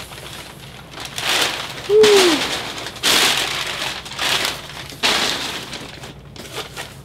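Crumpled packing paper rustling and crinkling as handfuls are pulled out of a cardboard box, in about five short bursts.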